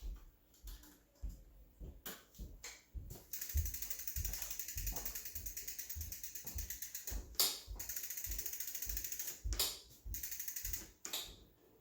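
Bicycle rear freewheel ratcheting: the pawls tick rapidly and evenly for several seconds, starting about three seconds in, with a few separate clicks and knocks around them.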